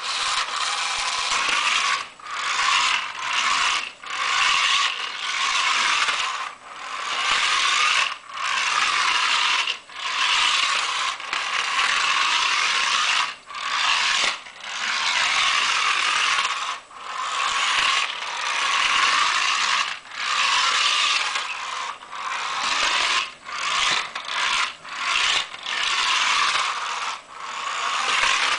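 Toy car's plastic gears whirring and rattling in runs, with short breaks every second or two.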